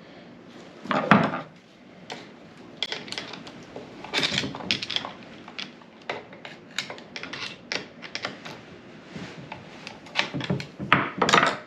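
Metal parts and hand tools clinking and knocking while a rear differential is handled during reassembly: a run of irregular metallic clicks and clanks, loudest about a second in and again near the end.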